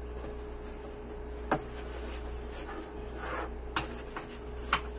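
Handling noise of a folded umbrella being pushed into a nylon shoulder bag's side pocket: fabric rustling and a few sharp knocks, the loudest about one and a half seconds in, over a steady low hum.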